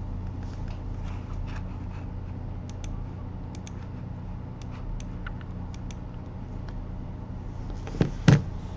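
Steady electrical hum with faint scattered clicks, then a loud short knock about eight seconds in.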